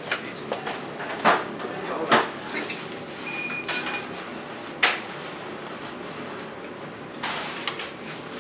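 Polystyrene takeaway chip box being handled and pressed shut on a shop counter: a few sharp knocks with light clattering between them.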